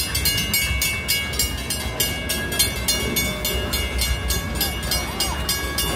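Six Flags Over Texas Railroad steam train moving away along the track, with a quick, even rhythm of hissing pulses, about four a second, over a low rumble.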